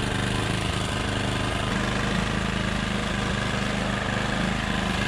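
Small gasoline-powered generator engine running steadily, its hum unchanging.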